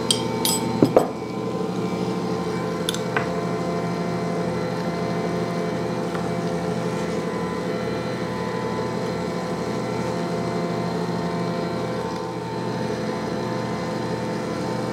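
Ankarsrum Assistent stand mixer running steadily, its motor humming as the roller works bread dough in the turning bowl. A few sharp clinks in the first second and again about three seconds in.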